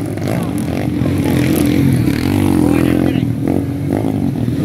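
Dirt-bike engines revving as several motorcycles ride up a dusty trail, the pitch rising and falling with the throttle.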